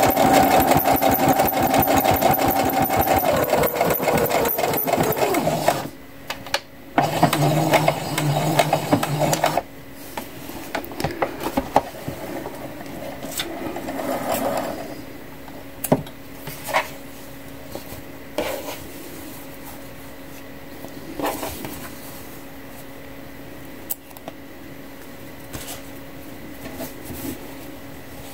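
Domestic electric sewing machine stitching a programmed decorative stitch in rapid, even strokes, its motor tone dropping in pitch about three seconds in, stopping around six seconds, then running again for a couple of seconds before stopping. After that, only a few scattered clicks and light handling sounds.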